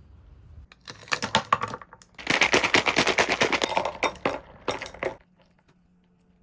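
Ice cubes in a glass clinking and crackling as milk is poured over them: a dense run of rapid clicks in two spells, the second longer and louder, stopping suddenly a little after five seconds.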